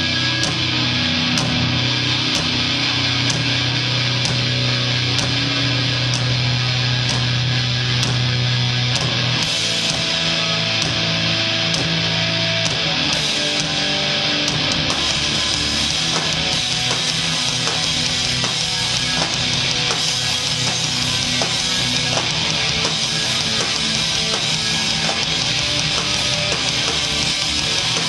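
A heavy rock band playing live, with electric guitars, bass and a full drum kit. A held low chord rings for about the first nine seconds, then the playing gets busier, with more cymbal.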